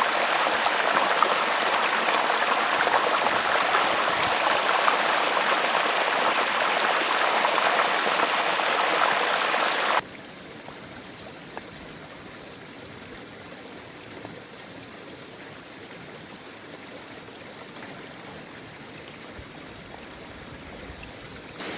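Mountain stream splashing over rocks into small pools: a steady rush of running water. About ten seconds in it drops suddenly to a much quieter, gentler flow.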